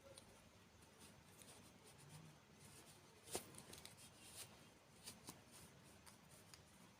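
Near silence with a few faint clicks and taps, the sharpest one about three and a half seconds in.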